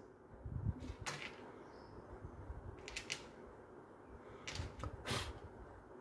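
Faint pencil and plastic ruler on paper: a few short scratchy strokes as lines are drawn along the ruler, with light handling of the ruler.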